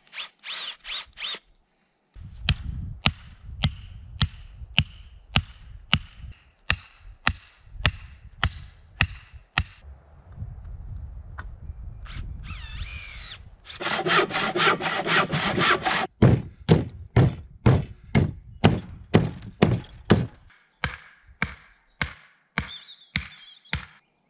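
A tool working wood in quick, regular strokes, about one and a half a second, with a louder, harsher stretch of about two seconds a little past the middle.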